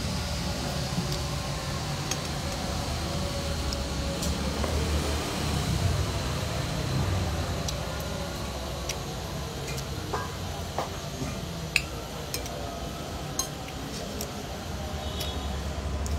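Metal spoon and fork clinking against a glass plate while eating. A handful of short, sharp clinks are scattered mostly through the second half over a steady low background hum.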